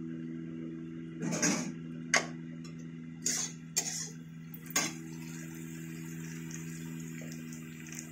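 Stainless-steel plates and utensils clanking: about five sharp knocks and clatters between one and five seconds in, over a steady low hum.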